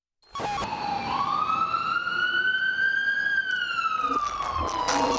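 Emergency-vehicle siren wailing: one slow rise in pitch over about three seconds, then a slow fall. Music with a beat comes in near the end.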